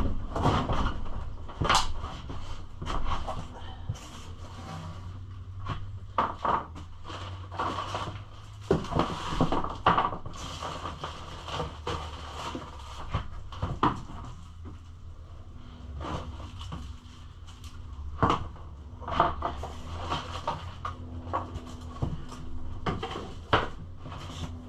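Hard plastic motorcycle body panels being handled and unpacked: irregular knocks, clatters and rustling scattered throughout, over a low steady hum.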